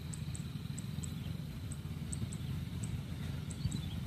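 Gatra rice combine harvester's engine running at a distance, a steady low rumble. Short high chirps repeat a few times a second over it.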